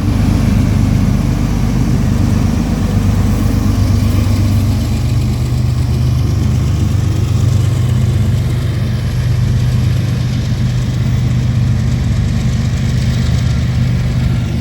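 Diesel freight locomotive engine running, a loud, steady low drone with no sharp knocks.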